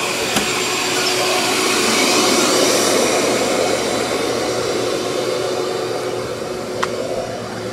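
Shop-Vac wet/dry vacuum running steadily, its hose hooked to the truck's air inlet, sucking wood gas through the gasifier to prime it before the engine is started. Two light clicks, one early and one near the end.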